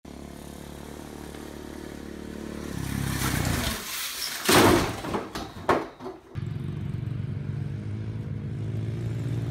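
A motor vehicle engine running, growing louder, then a run of loud crashing clatter as a small dirt bike crashes, followed by another engine running steadily.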